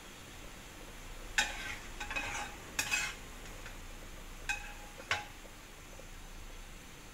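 A wok being scraped out into a bowl: a utensil scrapes and clinks against the wok about five times, each with a short metallic ring, as stir-fried broccoli and prawns are tipped out.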